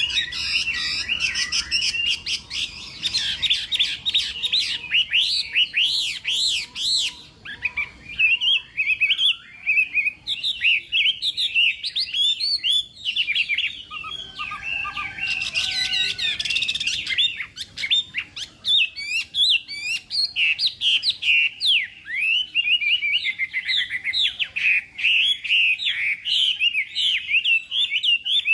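Chinese hwamei (họa mi) singing a long, rapid, varied song of sweeping up-and-down whistled notes, with only brief pauses.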